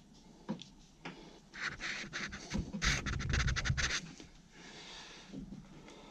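Rubber vacuum hose being worked onto engine fittings by hand: scratching and rubbing, two sharp clicks early on, then a quick run of clicks about three seconds in.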